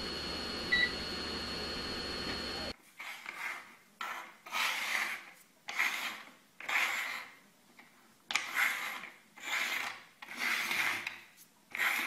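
Tape hiss and hum with a steady high whine and one short beep. After a cut about three seconds in, small objects are slid and rubbed across a wooden tabletop in a series of raspy strokes, about one every second or two.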